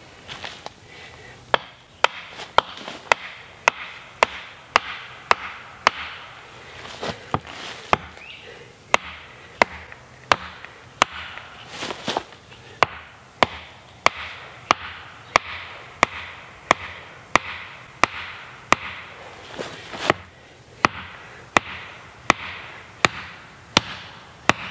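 An axe repeatedly striking the top of an upright wooden pole to drive it into the ground as a stake. The blows are sharp, knocking hits in a steady rhythm of a little under two a second, beginning about a second and a half in.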